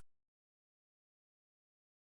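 Digital silence: a dead gap with no sound at all between lines of text-to-speech dialogue.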